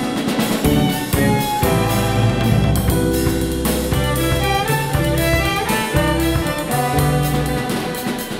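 Live jazz ensemble playing with a string quartet: electric bass, keyboard and drum kit under bowed violins, viola and cello, the drums keeping a steady beat.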